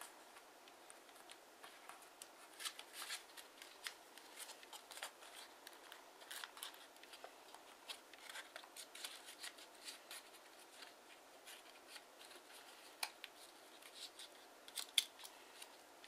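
Origami paper being folded and creased by hand: faint, irregular crinkling and rustling, with a few sharper crackles near the end, the loudest about a second before it ends.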